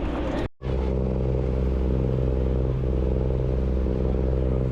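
Fishing charter boat's engine running steadily with a constant low drone, starting after a brief dropout about half a second in.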